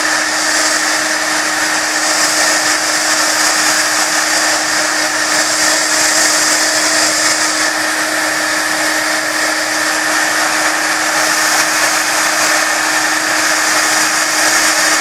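Embossing heat gun running steadily: a loud, even buzzing rush of air over a constant hum, melting clear embossing powder on cardstock.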